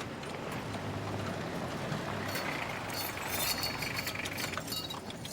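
A motor vehicle's engine running: a steady low hum under a wash of noise.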